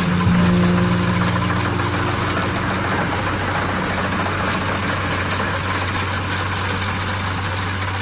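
Kubota DC-70 combine harvester working through standing rice: its diesel engine and threshing machinery running steadily under load, a low engine hum beneath a constant rushing noise.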